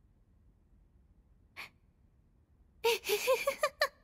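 Near silence, a short breath about a second and a half in, then near the end a woman's voice breaks into rapid, breathy laughter in short bursts that rise and fall in pitch.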